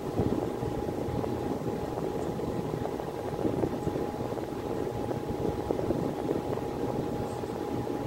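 Miller E2 series furnace running steadily in heating mode: an even whooshing rumble with a faint steady hum riding on top.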